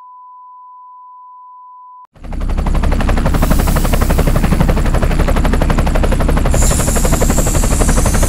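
A broadcast stand-by test tone, a single steady beep, that cuts off suddenly about two seconds in. A hovering spaceship's engine then starts up loud: a deep rumble with a fast, even rattling pulse, and a hiss that grows stronger in the last couple of seconds.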